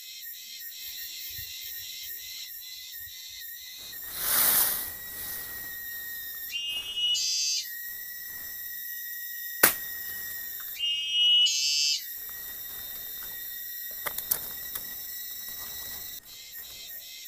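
Forest insect chorus: a steady, high pulsing trill. Two louder, higher calls about a second long break in twice, with a short rushing noise about four seconds in and a sharp click near the middle.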